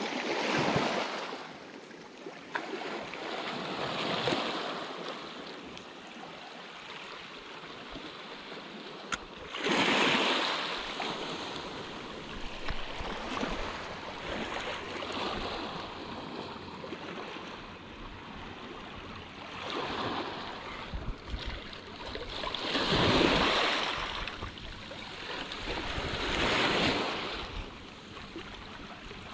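Small sea waves washing onto the shore, swelling and fading every few seconds, with some wind on the microphone.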